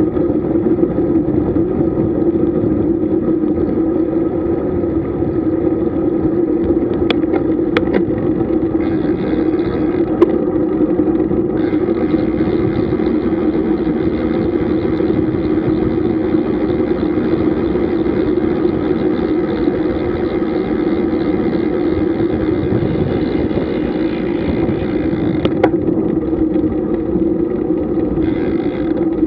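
Steady rush of wind and road noise while riding a road bike, with a few short clicks.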